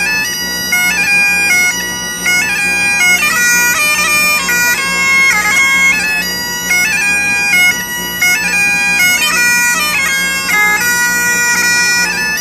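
Great Highland bagpipe played solo: the drones hold one steady low note while the chanter plays a melody of held notes that step up and down, with quick grace-note flicks between them.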